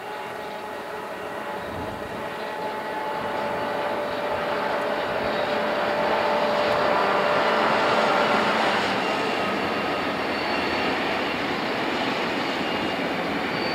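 A line of six diesel-electric locomotives hauling a loaded grain train passes close by, their engines running with a steady whine over the rumble of the train. The sound grows louder to a peak about eight seconds in as the locomotives go past, then eases slightly.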